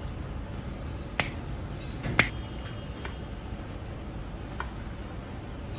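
A few short, light clicks and taps of kitchenware being handled, the sharpest around one and two seconds in, over a steady low background hum.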